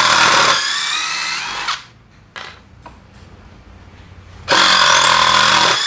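DeWalt DCF787 cordless impact driver backing screws out of hard bengkirai wood. It runs in two loud bursts: the first lasts just under two seconds, and the second starts about four and a half seconds in.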